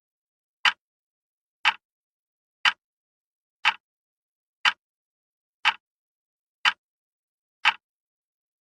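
Wall clock ticking once a second, each tick a sharp, short click with silence between.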